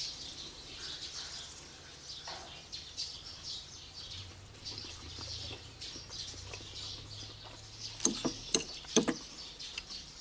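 Birds chirping in the background: many quick, high chirps. A faint low hum runs through the middle, and a few sharp clicks come about eight to nine seconds in.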